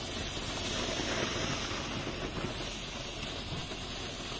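Green 'railway signal' flare firework burning steadily in a puddle, giving off an even hiss as it throws sparks.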